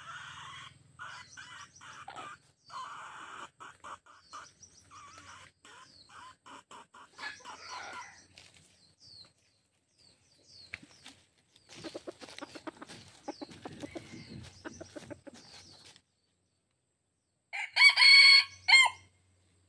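Junglefowl-type decoy rooster crowing once near the end: a short, loud crow with a brief break before its last note. Before it come quieter clucks and small bird chirps.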